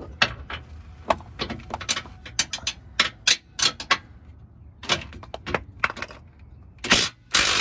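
Hand tools on the Jeep's rear track bar bolt: irregular metallic clicks and clinks of a wrench and ratchet working the 21 mm bolt loose, with a quick run of clicks midway and a few louder metal clanks near the end.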